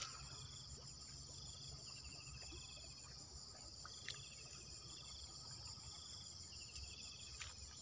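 Faint insect chorus: a steady high buzz with short trills repeating about once a second. A faint click sounds about four seconds in and again near the end.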